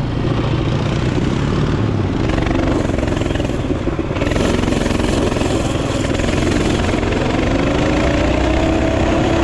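Mini bike engine running while being ridden, its pitch rising gradually over the last few seconds as it picks up speed.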